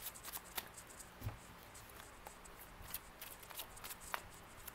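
A deck of tarot cards being shuffled by hand: faint, irregular light clicks and flutters of the cards.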